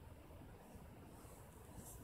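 Near silence: faint room tone, with one brief soft scratch of a drawing tool on paper near the end.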